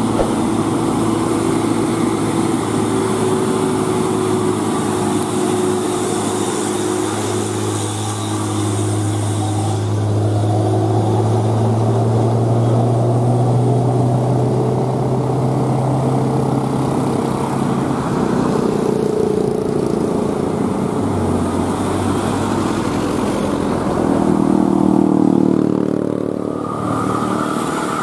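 Hino 500 dump trucks' diesel engines running as they pass, with mixed road traffic. The engine note climbs slowly in pitch through the middle, drops suddenly about three-quarters of the way in, and swells loudest near the end as a truck comes close.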